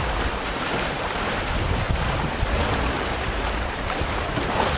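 Wind buffeting the microphone over the rush and splash of water past a sailboat's hull under sail.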